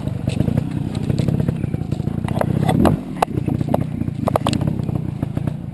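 Single-cylinder trial motorcycle engine running at low revs, its output dropping briefly about three seconds in, with several sharp knocks and rattles over the top.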